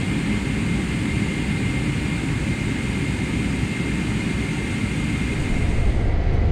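Boeing 777-300ER's GE90 jet engine running on the runway, a steady rumble with a thin high whine, heard from inside the cabin. About six seconds in the sound turns deeper and louder as the scene changes to the cockpit.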